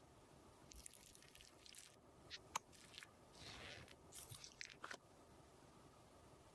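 Soft, faint handling of cosmetics: a few small sharp clicks, then short bursts of scraping and squishing, as when a makeup paste is worked and mixed.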